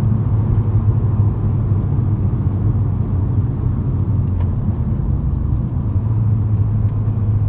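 Inside the cabin of a moving Mini Cooper S R56: the steady low drone of its 1.6 THP turbocharged four-cylinder engine and the road noise from its tyres while it cruises.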